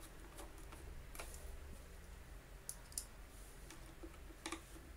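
Scattered small clicks and ticks of a screwdriver and screw working into the plastic housing of a Dyson DC50 vacuum cleaner, with two sharper clicks about three seconds in and a quick pair near the end.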